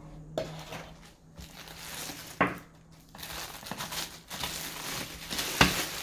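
Packaging being handled while unboxing a small kitchen appliance: rustling and crinkling, with a few sharp knocks, the loudest near the end.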